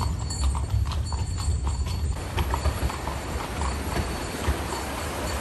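A horse's hooves clip-clopping on the street as it pulls a carriage, about four beats a second, clearest in the first two seconds and fainter after, over a steady low rumble.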